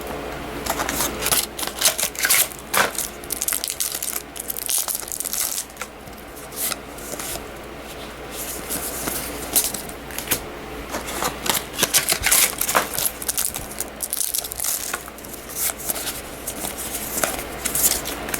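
Trading cards and foil booster-pack wrappers being handled: irregular rustling, crinkling and flicks of card stock in short bursts as packs are opened and cards flipped through.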